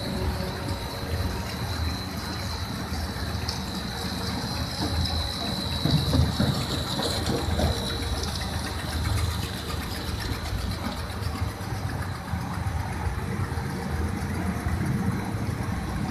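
Machinery of a snack-food processing line running steadily: electric motors, extruders and conveyors humming together, with a thin high whine through the first half.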